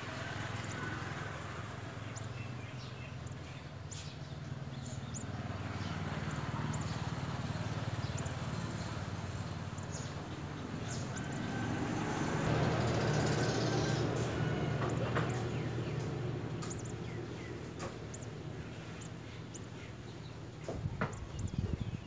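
A steady low motor rumble that swells in the middle of the stretch and then eases off, with short high bird peeps scattered through it. A few sharp knocks come near the end.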